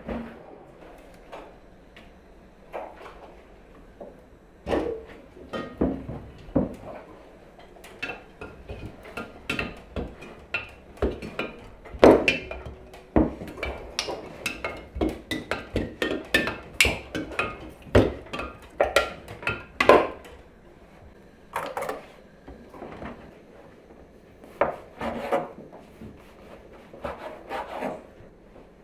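Kitchen handling sounds: irregular knocks and clinks of dishes and a glass jar on a counter, densest in the middle, ending with a bread knife sawing through a loaf on a wooden cutting board.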